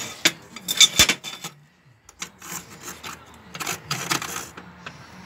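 A rod scraping and rubbing against a square steel tube as it is handled, in several short scrapes, with one sharp click about a second in.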